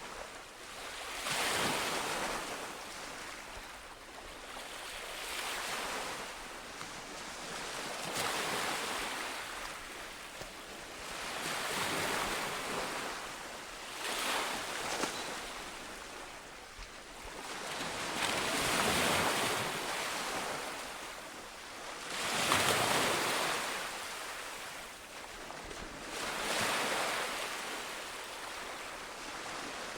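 Sea waves breaking on a shore, the surf swelling and receding in slow surges every few seconds.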